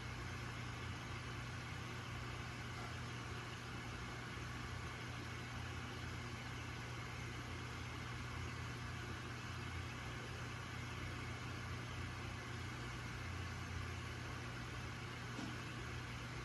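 Aquarium pump running: a steady low hum with an even hiss over it.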